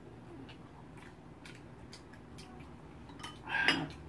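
Eating sounds at a table: light, scattered clicks of chopsticks and a spoon against a ramen bowl. About three and a half seconds in comes one short, louder sound.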